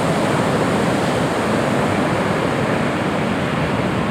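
Big typhoon-swell surf breaking, a steady dense wash of noise.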